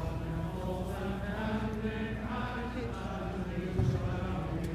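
Large crowd singing together, many voices on slow, long-held notes.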